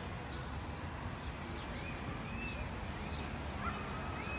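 Small birds chirping in scattered short, high calls over a steady low rumble.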